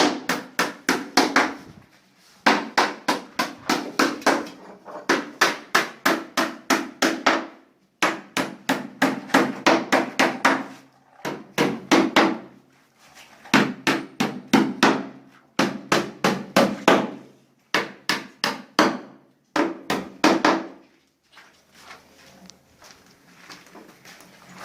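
Carpenter's hammer striking wood in quick runs of about four to five blows a second, each run lasting a couple of seconds with short breaks between, stopping about 21 seconds in.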